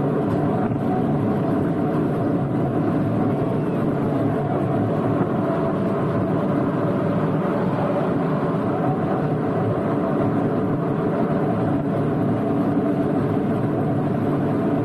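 Small tourist ride-on train running along its track, a steady drone with a few held tones heard from one of its open passenger cars.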